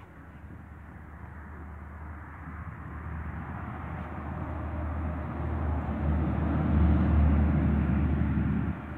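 Low, steady engine rumble growing louder over several seconds, then dropping sharply just before the end.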